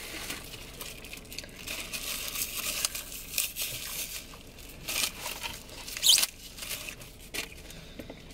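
Plastic food packaging and a plastic fork being handled while eating: crinkling and rustling with scattered small clicks and taps, and one louder crinkle about six seconds in.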